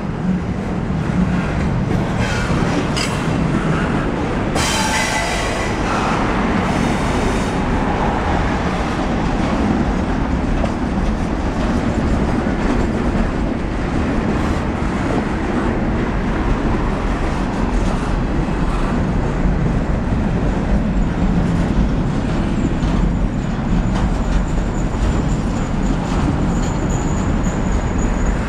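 Canadian National double-stack container train's wellcars rolling past: a steady rumble and clatter of steel wheels on the rails. A brief high screech from the wheels comes about five seconds in, and a faint thin squeal near the end.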